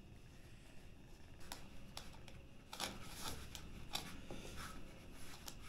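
Hands kneading flour dough: faint, soft handling sounds with scattered light clicks and rustles, a little busier from about three seconds in.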